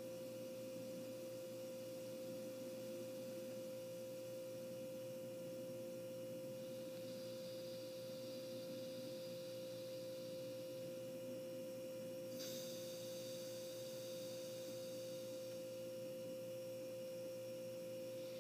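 A steady pure tone, like a held electronic hum, over faint hiss; a fainter, higher whine sets in sharply about twelve seconds in.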